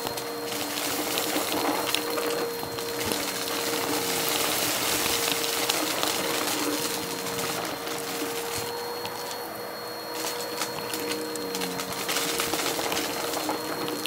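Numatic Hetty canister vacuum cleaner running with a steady motor hum and high whine, with scattered small crackles as it picks up mess.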